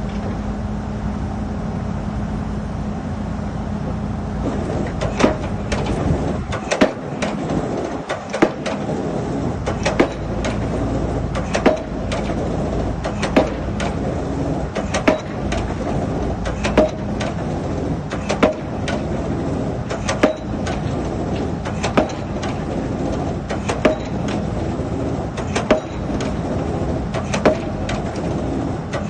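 A pile driver's hammer strikes a pile in a steady rhythm, about one blow every 1.7 seconds, over the machine's engine running. The blows begin about five seconds in; before that only the engine is heard.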